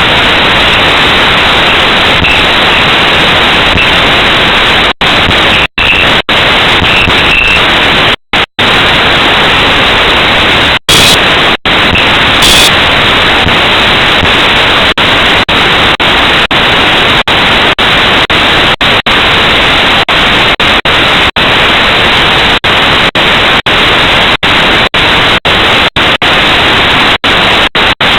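Loud, steady static hiss with many brief dropouts to silence and two short louder blips about eleven and twelve and a half seconds in.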